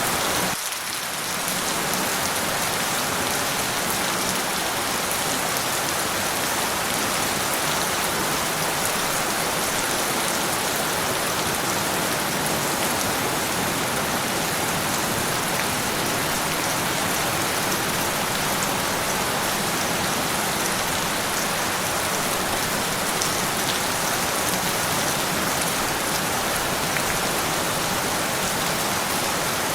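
Steady, dense rainfall, an even hiss of drops with no thunder. About a second in, the low end briefly thins out before the sound settles back to its steady level.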